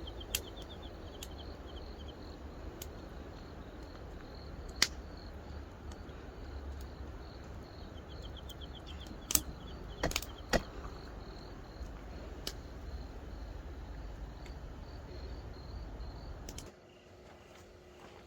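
Insects chirping outdoors in an even repeating pulse, with two short rapid trills, under a steady low rumble. Several sharp clicks sound about five, nine to ten and a half, and twelve seconds in, and the low rumble cuts off suddenly near the end.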